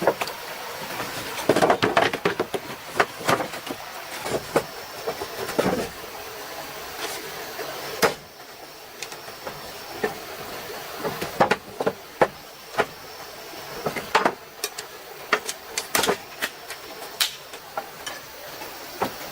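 Irregular sharp knocks and clicks from handwork, in clusters, over the steady rush of a stream.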